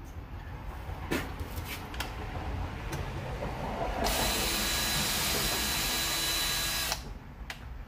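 Cordless hand drill, on its low speed setting, boring a pin hole through a clamped knife scale. A few clicks at first, then the drill runs steadily with a high whine for about three seconds and stops abruptly.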